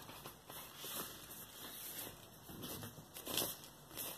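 Paper and card rustling and scraping as a vinyl LP's printed inner sleeve is slid out of its cardboard jacket and handled, in several irregular scrapes, the loudest about three seconds in.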